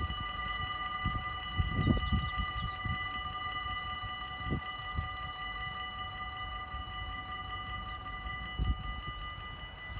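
Dutch level-crossing warning bells ringing steadily, several high tones at once, as the half-barriers come down. Irregular low rumbles run underneath.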